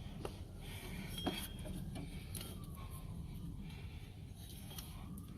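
A few light, scattered clicks and clinks as a serpentine belt is worked around the engine's pulleys by hand, over a low steady hum.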